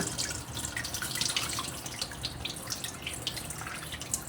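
Water trickling and dripping, with a steady wash of noise and many small quick drips and pops throughout.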